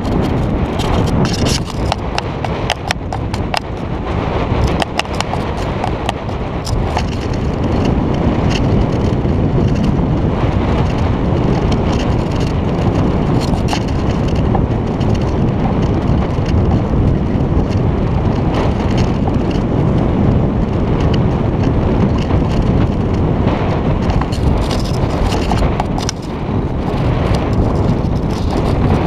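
Wind buffeting a GoPro's microphone at the top of a sailboat's mast: a loud, steady rumble. Irregular clicks and knocks come through it, most in the first few seconds and again near the end.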